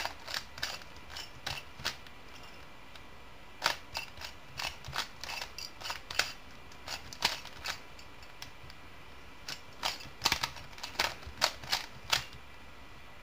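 Plastic Rubik's Cube layers being turned by hand: quick runs of clacks with short pauses between them. The turning stops near the end as the solve is finished.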